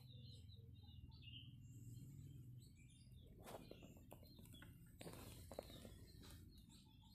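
Near silence: faint outdoor ambience with distant bird chirps, a few soft clicks about halfway through and a brief rustle a little later.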